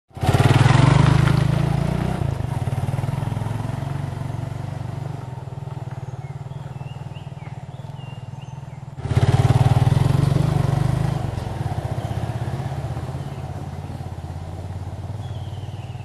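Motorcycle engine running as the bike rides off down a rocky dirt track, loud at first and fading with distance. About nine seconds in it is suddenly loud again and fades once more.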